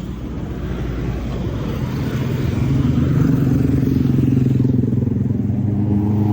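A motorcycle engine running at a steady pitch, getting louder over the first three seconds and then holding level.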